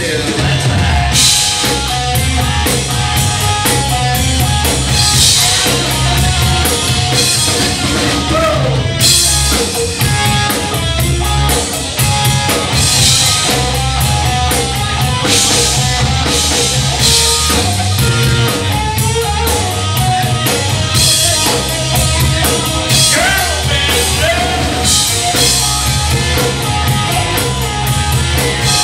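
Live rock band playing: electric bass, electric guitar and a drum kit with cymbals, in a steady driving groove.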